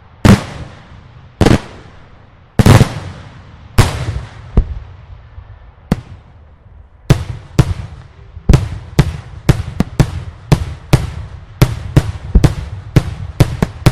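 Daylight fireworks display: loud explosive shell bursts, each a sharp bang followed by a rumbling echo. A few bangs come about a second apart, then from about halfway they quicken into a rapid string of about two to three a second.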